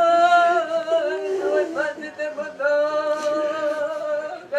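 A single unaccompanied voice singing a mourning lament over the dead, drawn-out wavering notes with short slides between them.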